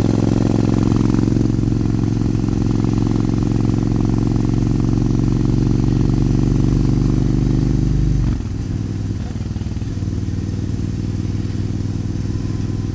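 2003 Suzuki Intruder 1400's V-twin engine through Vance & Hines Classic II pipes, running steadily under way. About eight seconds in it suddenly gets quieter and runs on at the lower level.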